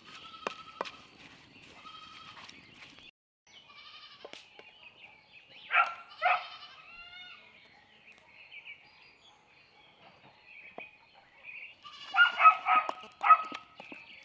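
Animal calls: two loud calls about six seconds in and a rapid cluster of calls near the end, with fainter calls between. A few light clicks near the start from a wooden spoon stirring in an enamel bowl.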